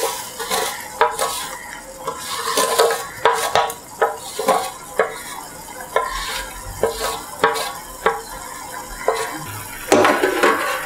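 Water boiling in a pan while roasted vermicelli is pushed off a steel plate into it, with repeated metal clinks and scrapes against the plate, about one or two a second and loudest near the end.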